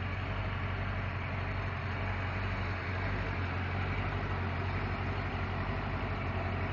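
Carbureted marine engine of an OMC stringer sterndrive idling steadily and smoothly, fully warmed up at about 160 degrees after a rebuild.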